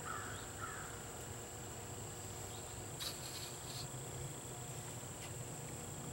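A steady high-pitched insect drone, with a crow cawing a couple of times at the start and a few faint clicks about three seconds in.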